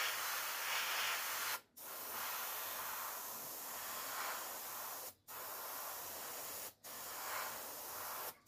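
Airbrush spraying heavily thinned acrylic paint: a steady hiss of air that stops abruptly for a moment four times as the trigger is let off and pressed again.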